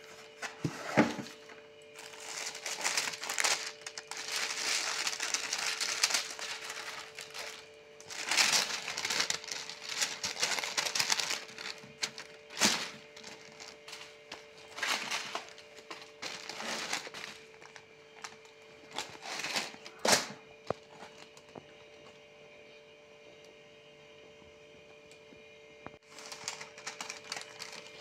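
Tissue paper crinkling and rustling in irregular bursts as a parcel is unpacked by hand, over a steady faint hum. It falls quiet for a few seconds about three quarters through, then the rustling resumes near the end.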